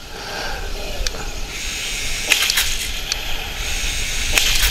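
Heng Long 1:16 Tiger 1 RC tank running, a steady low rumble and hiss with a few sharp clicks scattered through.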